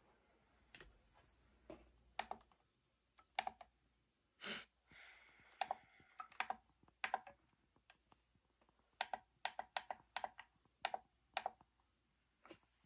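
Buttons on an Eton American Red Cross weather radio being pressed while its clock is set: a string of short plastic clicks, some in quick pairs and triplets. A brief hiss comes about four and a half seconds in.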